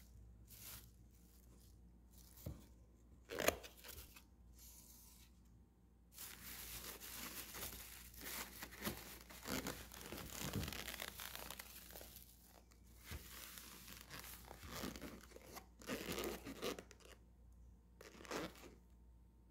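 Thin plastic carrier bag rustling and crinkling as hands pull it open around a foam takeout box, with a few sharp knocks in the first seconds and long stretches of crinkling after about six seconds.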